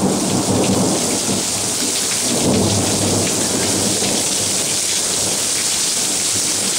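Heavy wind-driven rain pouring down in a sudden downpour, a steady dense hiss.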